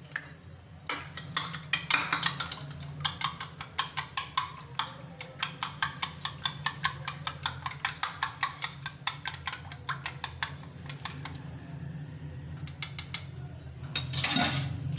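Egg being beaten with a metal spoon in a ceramic bowl: rapid clicking of the spoon against the bowl, several strokes a second, stopping just before the end.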